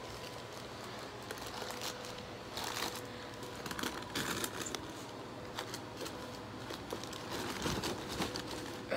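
Shoebox tissue paper rustling and crinkling as hands pull it back from the shoes, in several irregular short bursts.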